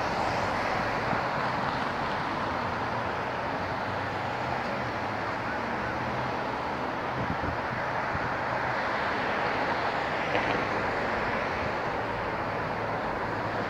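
Steady outdoor hum of distant traffic, an even wash of noise with a faint low hum underneath, left after the light-rail train's tones die away at the very start.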